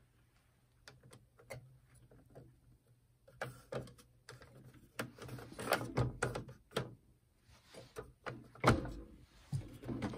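Aiwa NSX-350M CD tray mechanism clicking and clunking as it tries to open and fails to, the tray stuck with a disc still inside. It is sparse at first, then becomes louder and busier after a few seconds, with two heavier clunks.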